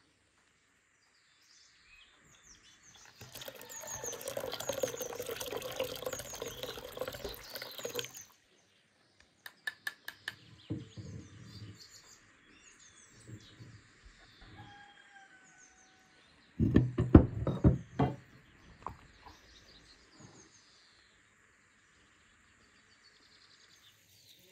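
Liquid poured from a clay jug into a glass mixing bowl for several seconds, then sharp knocks and clatter of utensils against the bowl and the wooden table. Small songbirds chirp in the background.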